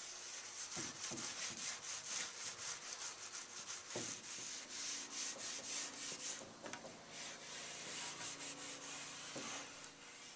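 Wood being rubbed by hand, as in hand sanding: a steady run of quick back-and-forth scraping strokes, several a second, that pauses briefly about six and a half seconds in, then resumes and stops near the end.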